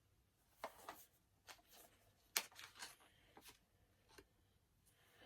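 Faint handling of a Blu-ray steelbook case and its packaging: a few soft clicks and rustles, the sharpest click about two and a half seconds in.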